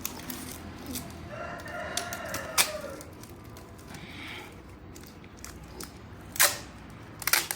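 A rooster crows once, about a second in, a call lasting about a second and a half. Over it come a few sharp crackles of plastic tape being handled and pulled as a broken cricket bat is wrapped, the loudest near the end.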